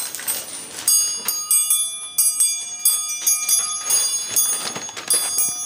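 Jingle bells being shaken, ringing in quick, uneven strikes about three times a second.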